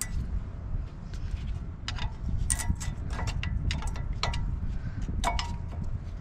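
Sharp metal clicks and clinks, several ringing briefly, as new brake pads are worked into the anti-rattle clips of a 2007 Chevy Suburban 1500's front caliper bracket, over a steady low rumble.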